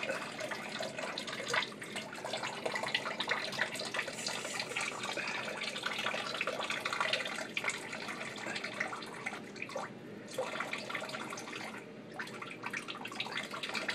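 Tap water running and splashing into a sink, with an uneven spattering as the stream is broken up.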